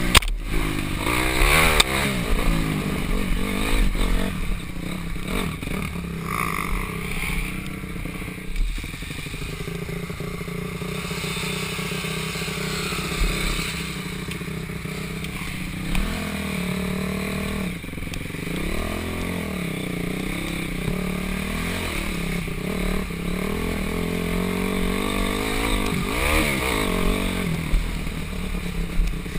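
Dirt bike engine heard from on the bike while riding a trail, its pitch rising and falling with the throttle, with occasional knocks and a sharp one at the very start.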